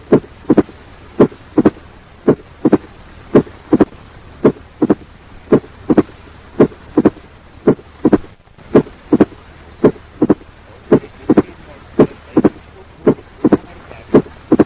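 Recorded heart sounds with the opening snap of mitral stenosis: a slow, steady heartbeat with a short, high-pitched, snapping extra sound just after the second heart sound in each beat, about one cycle a second.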